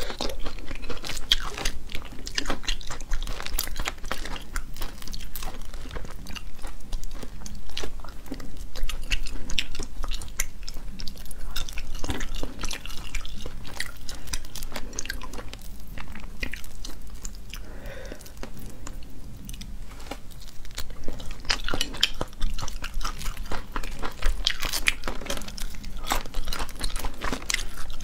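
Close-miked chewing and crunching of spicy crayfish tails, with crackling as the shells are pulled apart by hand. The crackles come thick and fast, easing off for a few seconds a little past the middle.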